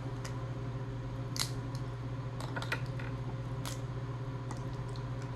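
Crab and crawfish shells being cracked and picked apart by hand: a few scattered sharp clicks and cracks over a steady low hum.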